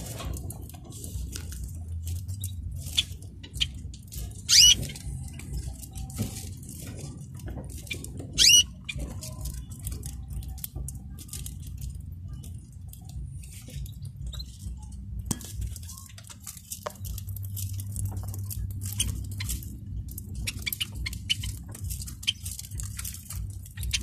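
Caged canaries pecking and husking seed in a plastic feeder dish: a rapid, irregular patter of small clicks, with two loud short bird calls about four and a half and eight and a half seconds in.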